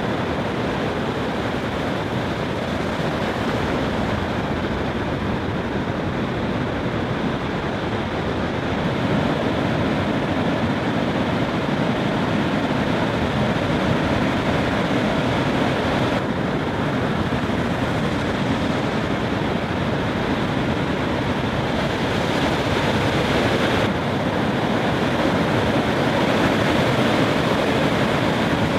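Steady roar of heavy breaking surf, with wind buffeting the microphone.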